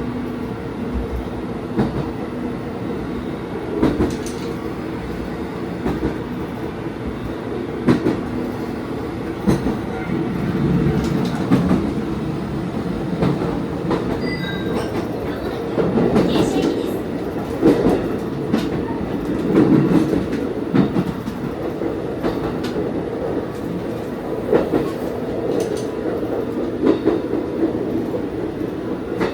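Diesel railcar running along the line, heard from inside the train. Its engine and running gear make a steady hum, and the wheels click over rail joints about every two seconds.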